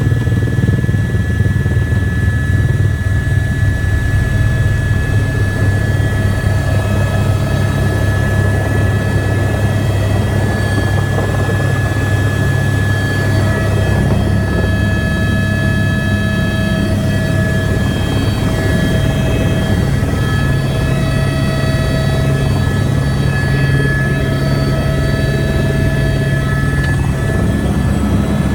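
Helicopter running steadily: a loud low rotor throb with a steady high-pitched turbine whine over it.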